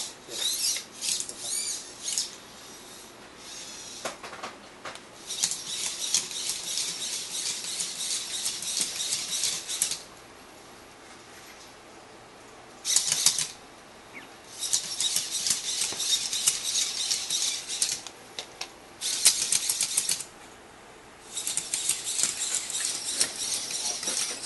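Bioloid Premium humanoid robot's servo motors whirring and its feet clicking on a tile floor as it gets up and walks. The fast whirring and clicking comes in stretches of several seconds and stops twice for a few seconds; in the first two seconds it wavers up and down in pitch.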